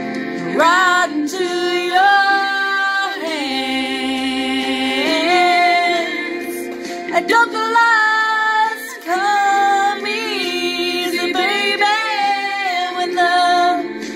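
A woman singing a slow ballad in long held notes that bend in pitch, over a steady instrumental backing track.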